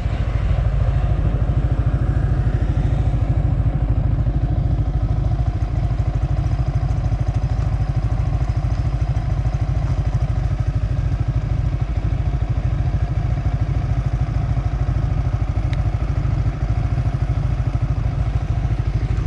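Yamaha Sniper 155 VVA's single-cylinder engine running steadily at speed, nearly buried under heavy wind rumble on the microphone.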